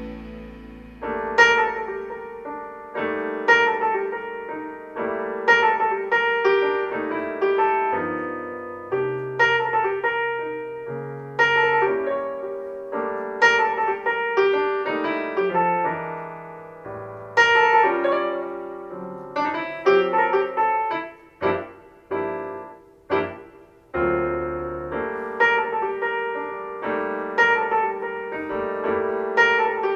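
Solo piano music played back through a pair of JVC EX-P1 WoodCone loudspeakers and picked up by a microphone in the room. A new piece starts about a second in, after the previous track's last note dies away.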